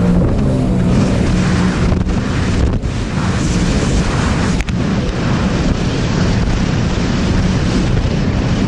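Sea-Doo Spark Trixx jet ski running at full throttle at top speed, its engine note holding steady, under heavy wind buffeting on the microphone and the rush of spray and water from the hull.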